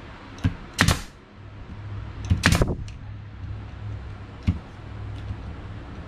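Bostitch pneumatic nail gun firing nails into wooden planter boards: a few sharp pops, the loudest about a second in and a cluster around two and a half seconds in, with lighter clicks between. A low hum runs under the middle of it.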